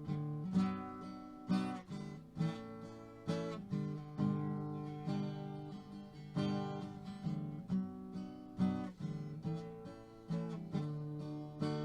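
Background music: acoustic guitar strumming chords at a steady pace, about one strum a second.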